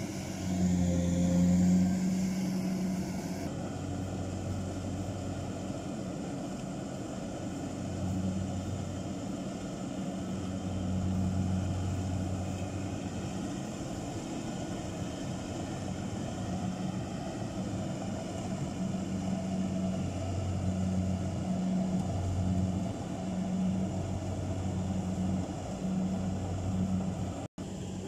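Combine harvester engine running steadily while it harvests rice, a low hum that swells and fades every few seconds.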